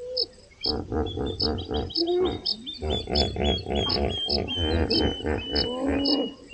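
Hippos calling: a long run of rapid, deep pulsing grunts and honks, starting under a second in. Behind them a high chirp repeats steadily about twice a second.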